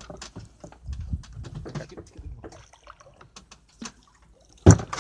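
Light water splashing and dripping at the side of a wooden boat as a hooked Spanish mackerel surfaces alongside on a handline. Scattered small clicks and knocks run through it, and a loud thump comes near the end.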